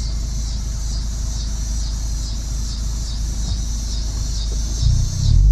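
Car driving, a steady low engine and road rumble that grows louder near the end as the car picks up speed. A faint hiss repeats about twice a second above it.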